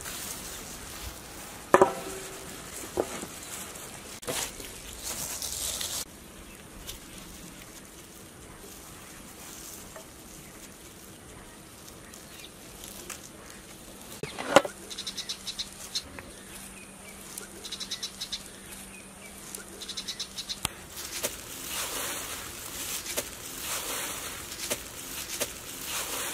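Gloved hands working chicken pieces through flour and crushed cornflakes in steel bowls and trays: soft rustling, ticking and crunching, with two sharp clinks of steel dishware, one about two seconds in and one midway.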